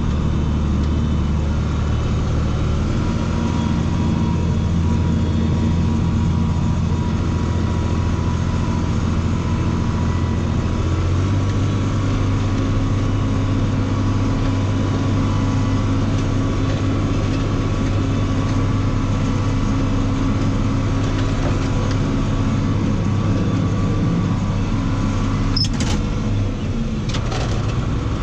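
Farm tractor's diesel engine running steadily under load, its engine speed stepping up a little about 3 seconds in and again about 11 seconds in. A few sharp clicks near the end.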